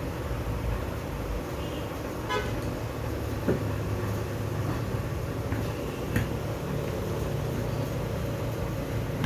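Steady low hum of background noise, with a short horn toot about two seconds in and a couple of light clicks.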